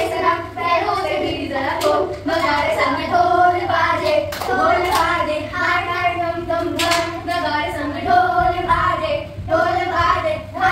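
Singing with hand claps: a sung melody that holds and bends its notes, with sharp claps scattered through it.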